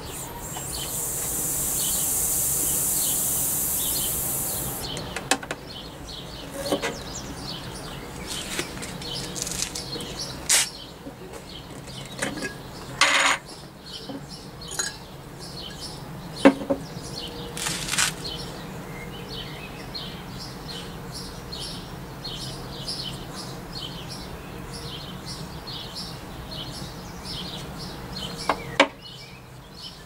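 Air hissing back into a glass-jar vacuum chamber as the vacuum is released, for about five seconds. Then scattered clinks and knocks as the glass jar is lifted off its lid and the LiPo battery is taken out and set down on a wooden table. Birds chirp steadily in the background.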